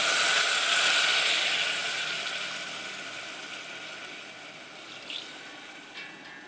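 Water hitting hot oil and fried vegetables in an aluminium pressure cooker: a loud hiss and sizzle, strongest at the start and dying away steadily.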